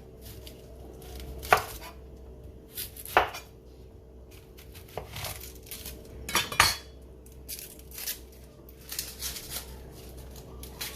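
A kitchen knife knocking and tapping on a cutting board while an onion is cut and trimmed. The knocks are irregular, with a few sharp louder ones among lighter taps, not a steady chopping rhythm.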